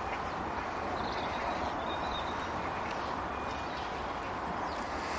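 Steady outdoor background noise with a few faint, brief bird calls over it.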